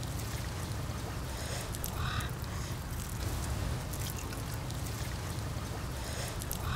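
Faint wet handling noises of a raw fish being cleaned and gutted by hand with a small knife, over a steady low rumble. There are two short higher sounds, about two seconds in and near the end.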